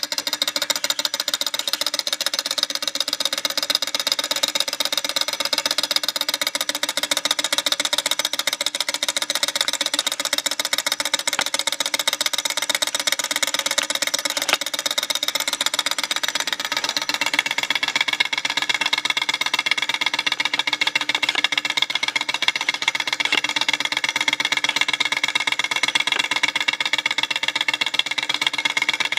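Small hot-air Stirling model engine running over a rubbing-alcohol flame, its piston, crank and flywheel linkage making a rapid, even clatter. The owner says the rubbing alcohol does not burn hot enough for it to run fast.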